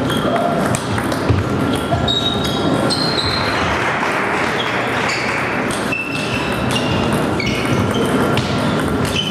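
Table tennis balls clicking off rackets and table tops in quick, irregular succession, some hits ringing with a short bright ping, over the steady hubbub of a large sports hall.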